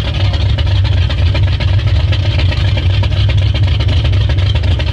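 Speedboat engine running with a steady, loud low drone.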